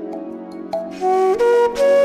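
Background music: soft sustained chords, joined about a second in by a flute melody of held notes stepping upward in pitch.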